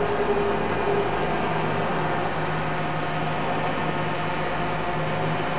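Quadcopter drone hovering overhead, its propellers giving a steady, even hum.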